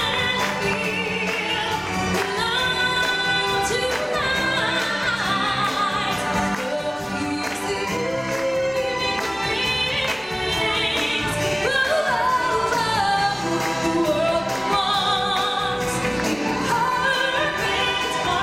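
Live stage-show singing, amplified through a microphone, over full musical accompaniment. The voice holds long, wavering notes.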